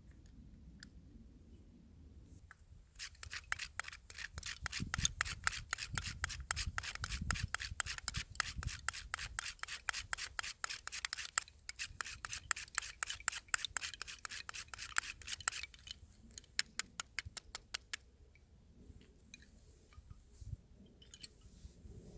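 Rapid scraping or rasping strokes, several a second, going for about twelve seconds, then a few slower strokes before they stop.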